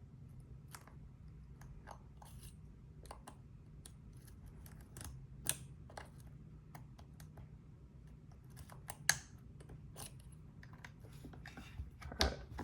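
Lock-picking tools working inside a Bovii dimple lock: scattered small clicks and scrapes as the pick sets the pins under tension, with a louder click about 5 seconds in, another about 9 seconds in, and a burst of handling noise near the end. A low steady hum runs underneath.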